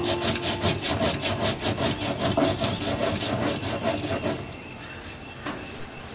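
Stone roller grinding seeds on a flat stone grinding slab: quick, even rasping strokes back and forth, about six a second. The grinding stops about four and a half seconds in.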